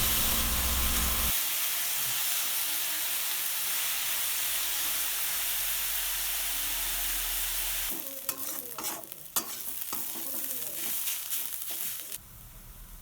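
Bottle gourd peel and potato frying in hot oil in a kadai, a steady sizzle. From about eight seconds in, a spatula scrapes and knocks against the pan as the mix is stirred, and the sizzle falls away near the end.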